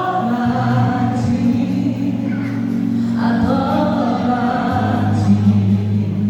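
A gospel vocal group singing a Christian worship song in harmony, in phrases over steady held low notes.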